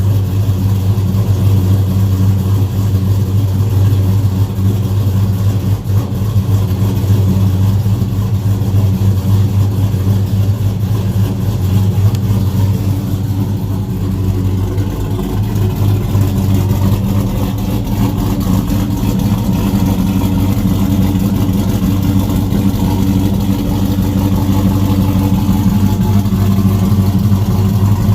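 2007 Chevrolet Avalanche's V8 engine idling steadily, shortly after a cold start.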